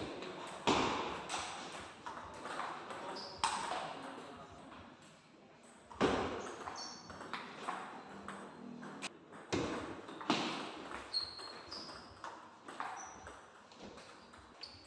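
Table tennis ball being hit back and forth in rallies, with sharp clicks off the paddles and bounces on the table, each click ringing briefly in the hall. The players use long-pimple rubber.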